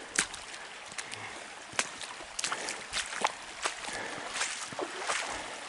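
Shallow creek water trickling faintly over rocks, with irregular sharp clicks and crunches of footsteps on stones and flood debris.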